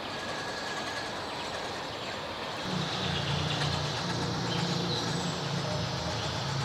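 1/10 scale RC rock crawler (Axial SCX10 III) driving off-road: its electric motor and geared drivetrain running over the ground, with a low drone coming in about three seconds in.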